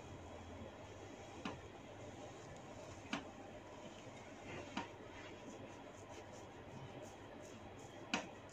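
Four sharp cracks of neck joints popping during a massage neck manipulation, a second or more apart, the last the loudest, over a low steady hum.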